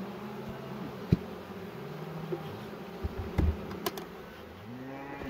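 Honey bees buzzing steadily around an open hive, with a few sharp knocks from wooden hive frames and parts being handled. Near the end a cow starts to moo.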